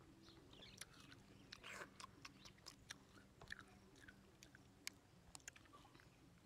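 Faint, irregular small clicks and smacks from a baby monkey's mouth and lips working at an ice cream cone, over a faint low hum.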